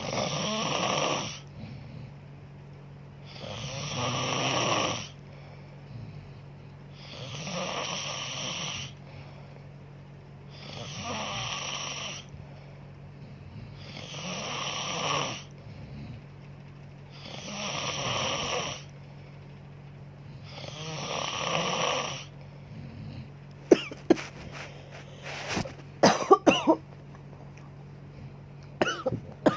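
A sleeping woman snoring, seven long snores at an even pace of about one every three and a half seconds. Then the snoring stops, and a few short sharp clicks or knocks come in a cluster near the end.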